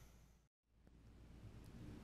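Near silence across a cut between two recordings: faint background hiss fades out, drops to dead silence for a moment about half a second in, then slowly comes back up.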